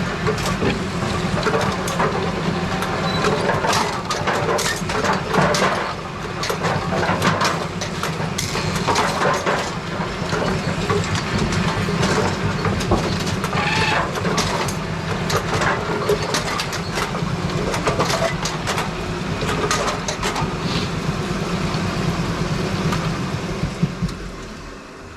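Brunswick bowling pinsetter running through its cycles: a steady motor hum with continual mechanical clanking and clattering, winding down near the end.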